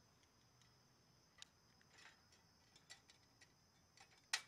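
Faint, scattered clicks of a long-nosed utility lighter and a metal candle lantern as a candle is lit, with one sharper click near the end.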